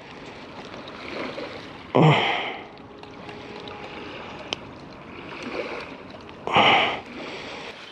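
Two heavy breaths out, like sighs, close to the microphone: one about two seconds in and one near the end. In between there is faint handling noise, with one small click, as a hook is worked out of a small goby with pliers.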